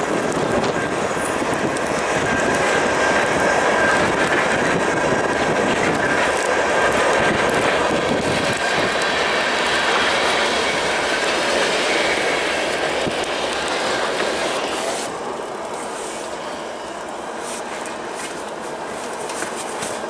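Freight cars of a mixed freight train rolling past on the rails: a steady rumble of wheels on track with a faint, steady high-pitched squeal. It eases off a little about fifteen seconds in.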